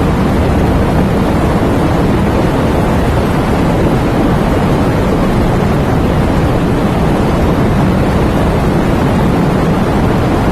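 Steady rain: an even, unbroken noise that keeps the same level throughout.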